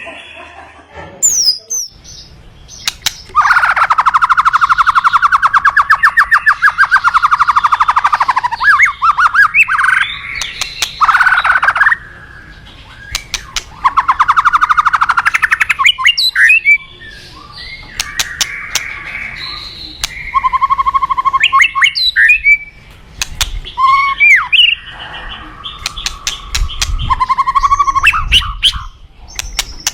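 White-rumped shama (murai batu) singing: a long, fast rattling trill from about 3 to 9 seconds in and another around 13 to 16 seconds, broken by sharp whistled glides and short clicks, then a run of shorter whistled phrases to the end.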